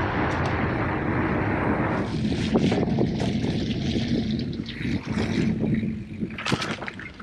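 A motor vehicle's engine running, with a steady rushing noise for the first two seconds, then a low steady engine tone under frequent clicks, knocks and rattles.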